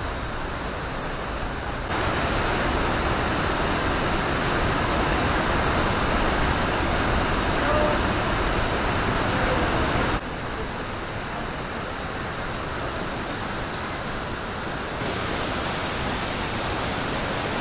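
Steady rush of Fukuroda Falls, a 120 m waterfall dropping in four tiers. Its level and tone shift abruptly three times: louder and brighter about two seconds in, duller and quieter about ten seconds in, and brighter again near the end.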